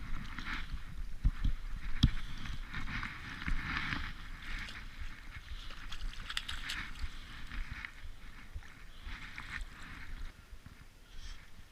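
Hooked spotted seatrout thrashing and splashing at the water's surface in repeated bursts, with a couple of low knocks about a second and two seconds in; the splashing dies down near the end.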